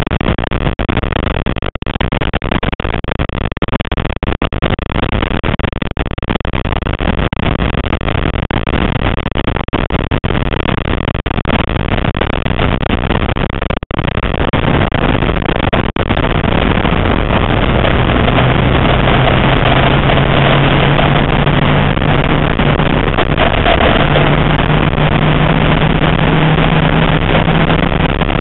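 Classic Mini race car's BMC A-series four-cylinder engine running hard at racing speed, heard from inside the cabin with road and wind noise. There is a brief break just before the halfway point. After that the engine note grows a little louder and steadier, and near the end it steps up and climbs slowly in pitch.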